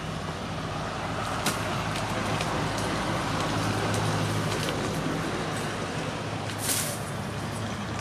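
A few sharp strikes of a long-handled billhook blade hitting tree branches, the strongest about two-thirds of the way through. A steady low engine hum, like a motor vehicle running nearby, carries on throughout.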